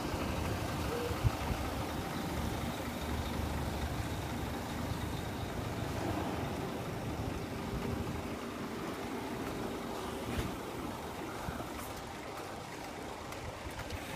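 Steady low rumble of idling diesel motor coaches and road traffic.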